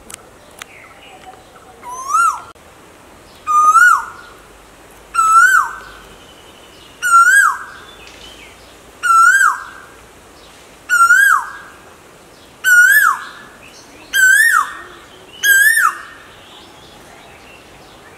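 Male Asian koel calling its two-note "ko-el" nine times in a row, roughly every two seconds. The first calls are lower and quieter, and the series builds up to full strength.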